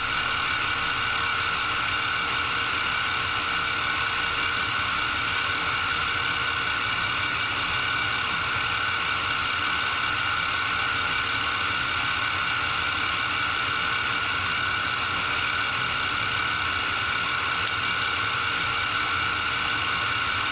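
G0704 CNC milling machine's spindle running steadily at speed while the end mill cuts a metal plate, a constant whine with a steady hum beneath it.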